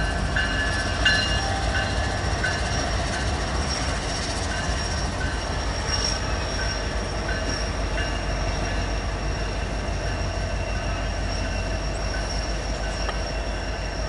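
Norfolk Southern diesel locomotives and intermodal stack cars rolling slowly across a bridge: a steady low engine rumble with a high-pitched wheel squeal and light clicks of wheels over rail joints.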